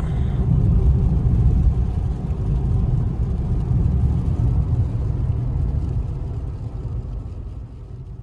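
Inside a moving car on a wet highway: steady low rumble of engine and tyre noise, fading out over the last couple of seconds.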